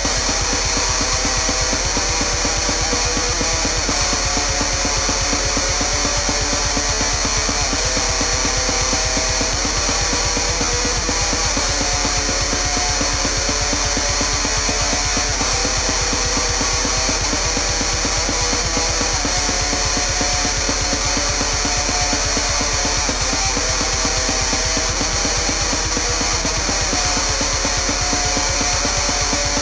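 Loud heavy-metal style music with guitar over a fast, driving beat, with a high accent about every four seconds.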